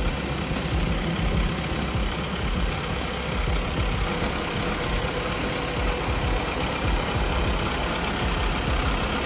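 Heavy machine's engine running steadily under load, a dense low rumble with a faint steady whine on top.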